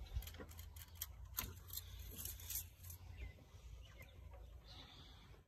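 Car engine idling faintly with a low, steady hum, freshly refilled with oil and left running so the new oil reaches the filter. A few short bird-like chirps and light clicks come over it.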